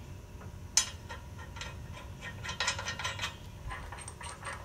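Hand ratchet clicking in short, irregular runs as bolts are run in to fasten a tractor's side frame rail to the engine block, with one sharp metal knock about a second in.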